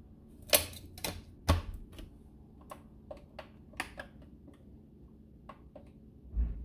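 Plastic knocks and clicks from a blender jar being set and shifted on its base, then lighter clicks of the base's buttons being pressed, with no motor running. The blender won't start because the jar is not seated properly on its safety lock.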